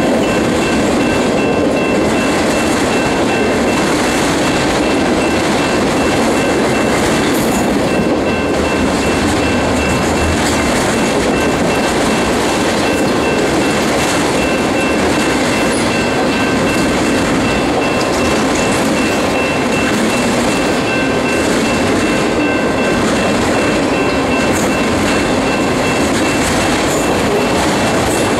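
A loaded autorack freight train rolling past close by: a steady, loud rumble and rattle of steel wheels on the rails. A faint, thin, high whine runs through it.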